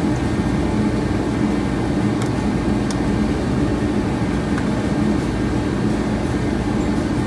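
A steady, low mechanical drone with an even hum, and two faint light clicks about two and three seconds in.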